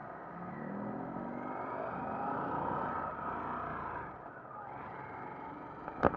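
Harley-Davidson Sportster's V-twin engine accelerating, its pitch rising over the first couple of seconds, then easing off as the throttle closes. A single sharp knock near the end.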